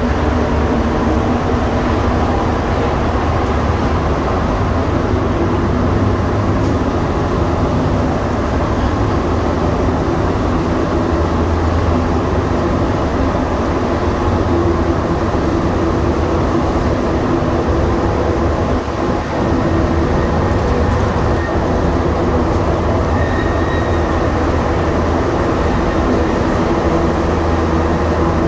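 Montreal Metro train running between stations on its rubber tyres: a loud, steady rumble with several steady humming tones.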